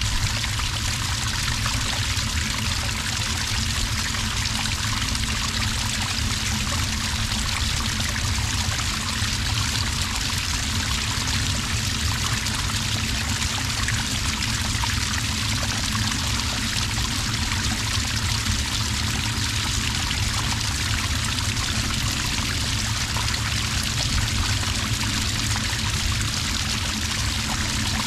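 Small cascade of water pouring steadily into sand, a continuous, unbroken rush of falling and splashing water.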